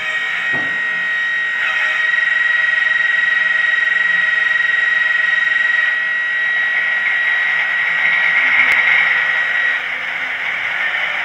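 Sound unit in a model of the Maybach-engined Brush Falcon diesel playing its engine running steadily, thin and tinny through the model's small speaker, with a held high tone on top. There is a single sharp click towards the end.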